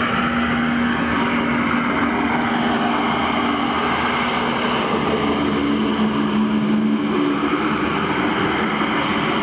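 Small boat's motor running steadily while underway, its pitch shifting slightly about two-thirds of the way through, over a steady rush of wind and water.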